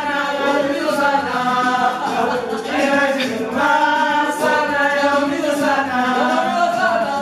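A group of voices singing together without instruments.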